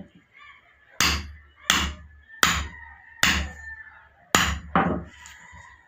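Hammer striking a steel tool held on a steel template plate, cutting tire rubber for a bushing: six sharp metallic blows a little under a second apart, the last two close together.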